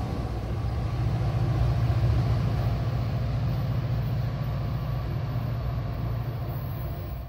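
NJ Transit PL42AC diesel locomotive's engine running with a steady low drone as the train moves away, slowly fading.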